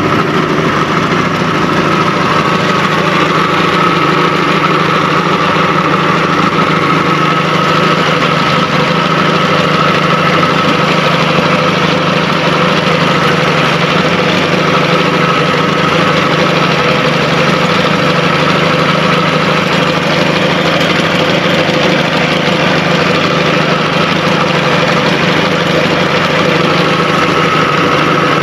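1957 Kiekhaefer Mercury Mark 75 straight-six two-stroke outboard motor running at a steady, unchanging pitch.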